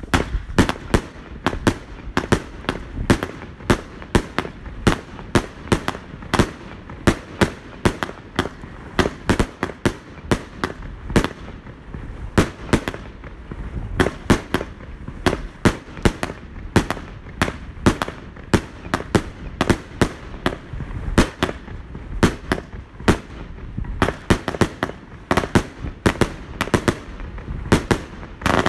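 Jorge JW405 El Dorado firework battery firing a continuous rapid series of shots, about two to three sharp bangs a second, as its tailed shells launch and burst into gold stars.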